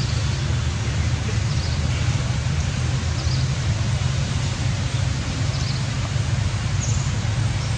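Steady low rumble of outdoor background noise, with a few faint, brief high chirps now and then.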